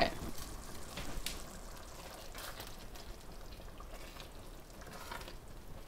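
Wooden spoon stirring a thick tomato-and-lamb ragu in an enamelled pot: faint wet sloshing with a few soft knocks.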